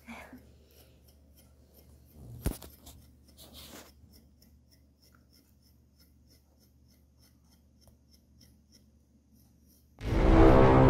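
Metal undercoat rake combing out a Pomeranian's shedding coat: faint scratchy strokes in quick succession, with one sharp knock about two and a half seconds in. Cheerful background music comes in near the end.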